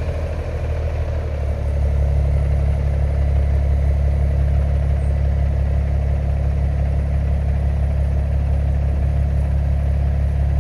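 Kenworth W900 semi truck's diesel engine running at low revs while reversing slowly, a deep steady rumble that steps up in level about a second and a half in as it takes a little throttle.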